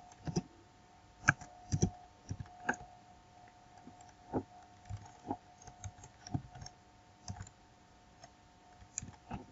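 Computer keyboard being typed on: irregular key clicks in quick runs, with a pause of over a second near the end, over a faint steady tone.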